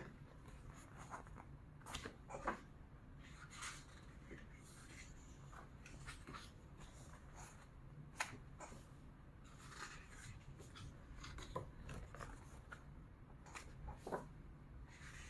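Faint rustling and soft clicks of paper as the pages of a Japanese manga paperback are turned and handled, coming irregularly with short gaps between them.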